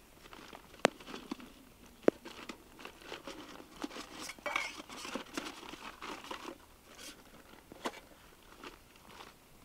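Crinkling rustle of plastic or packaging being handled up close, broken by a few sharp clicks.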